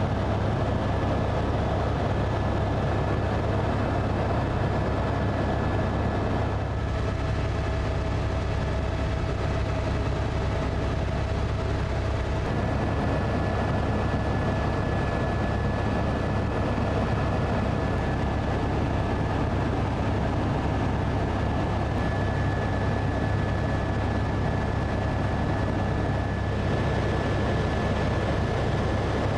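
Helicopter in flight, heard from on board: a steady low drone from the engine and rotor with a thin, constant high whine over it.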